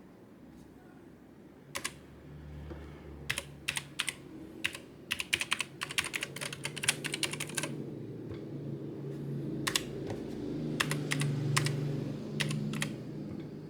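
Typing on a Keychron K8 mechanical keyboard with Keychron optical brown switches: scattered keystrokes, then a quick run of them in the middle, then a few more spread out.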